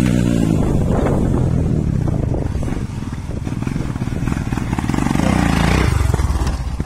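Motorcycle engines being ridden slowly up a muddy dirt track. One engine revs up and eases off about five seconds in.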